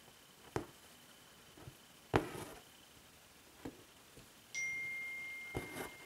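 A needle pricking through fabric and embroidery thread being drawn through it: a few soft clicks, one with a short rustle of thread. Past the middle, a single clear ringing ding sounds and fades away over about a second and a half.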